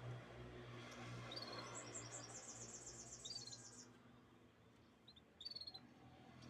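Canary singing faintly: a few short notes, then a fast, high trill of rapidly repeated notes lasting about two seconds, then a few more short chirps near the end. A low steady hum runs underneath.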